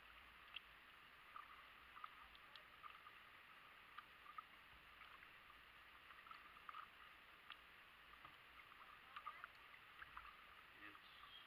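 Faint sound of a plastic kayak on a calm creek: a quiet steady hiss with small water drips and ticks scattered through it.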